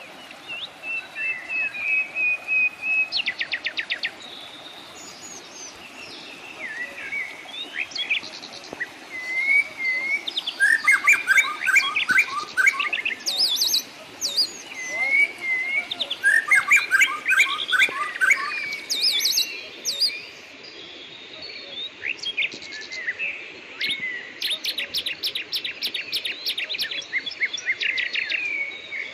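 Several forest birds singing and calling together in a morning chorus: whistled phrases, fast rattling trills and runs of repeated chips overlapping one another, over a steady background hiss.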